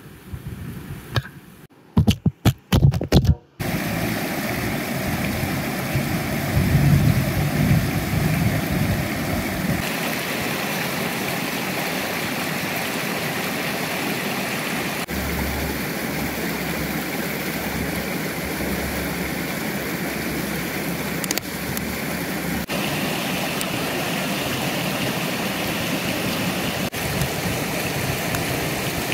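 Shallow river water rushing over stones, a steady rushing noise. Near the start it is broken by several abrupt cuts.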